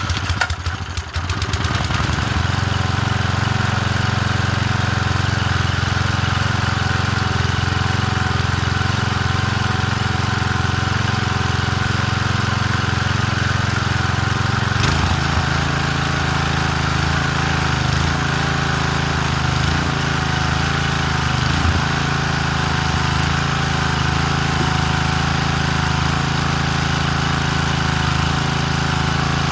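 Small single-cylinder Briggs & Stratton engine on a 1993 MTD lawn edger catching and then running steadily after sitting for years; fresh fuel is all it needed. About 15 seconds in its note shifts slightly and it carries on running.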